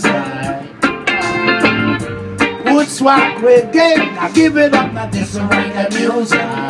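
Live reggae band music played on electric guitar, steel pan and keyboard, with a steady beat.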